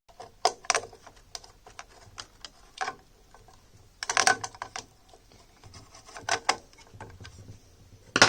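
Irregular clicks, taps and light knocks of hands working screws, connectors and metal parts inside a moving-head light while its control board is being swapped, with a few louder clusters of clatter about four, six and eight seconds in.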